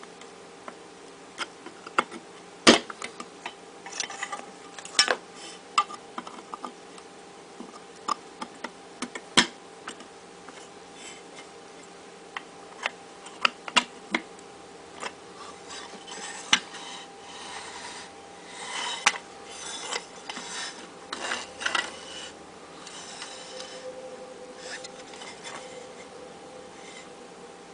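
Parts of a sunglass rack being handled and fitted together: scattered sharp clicks and knocks, the loudest about three seconds in, with a stretch of scraping and rustling in the second half. A steady faint hum runs underneath.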